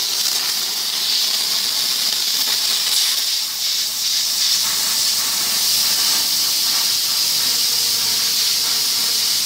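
Plasma cutter cutting sheet metal: a steady, loud hiss from the air-plasma arc that holds evenly throughout.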